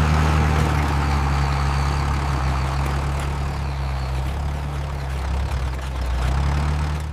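Tractor engine running steadily with a low, even drone and a hiss over it.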